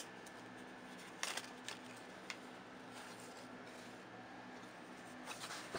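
Faint rustling and a few soft crackles of a heat-transfer sheet being peeled slowly off a freshly heat-pressed shirt, over a low steady hum.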